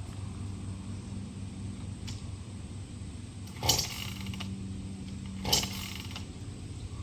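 Gas chainsaw being pull-started: two short, sharp rips of the starter cord about two seconds apart, the engine not catching, over a low steady hum.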